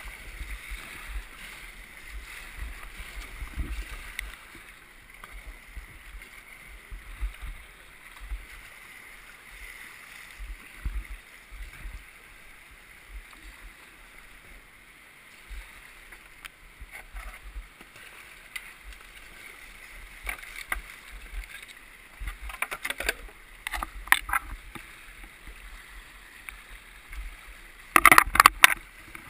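Fast river water rushing and splashing around a whitewater kayak, with low thumps on the boat-mounted camera throughout. Sharp knocks come about two-thirds through, and the loudest clatter of knocks comes near the end as the kayak pushes into overhanging branches at the bank.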